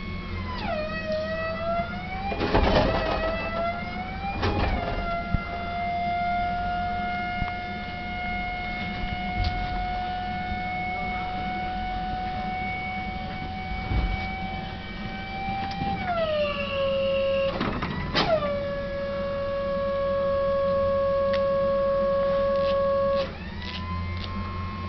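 Machinery of an AAV amphibious assault vehicle with a mine clearing kit running through a systems test: a steady high whine whose pitch sags sharply about a second in, then slowly creeps back up, and steps down again about sixteen seconds in. A few sharp clunks come about three, five and eighteen seconds in, and near the end the whine cuts off and a higher one starts.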